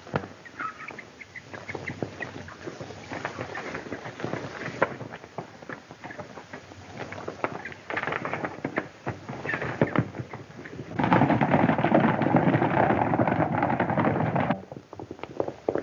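Horses' hooves clattering on the ground in an old film soundtrack, with a few short bird-like calls in the first second. About eleven seconds in, a louder, denser stretch of galloping cuts in for three or four seconds, then drops away abruptly.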